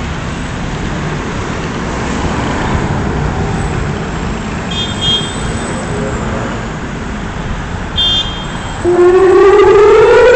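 Steady road-traffic noise with two brief high chirps, then near the end Israel's Memorial Day civil-defence siren starts, its wail rising steadily in pitch and drowning out the street.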